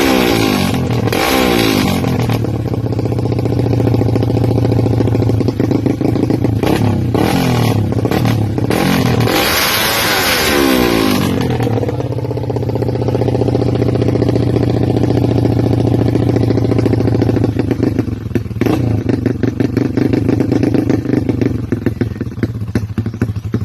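Honda XRM 125's single-cylinder four-stroke engine, with a 4-valve head and a Manoch Thailand exhaust pipe, running loud. It is revved up and down twice, once in the first couple of seconds and again around the middle, then blipped quickly near the end, settling back to idle between revs.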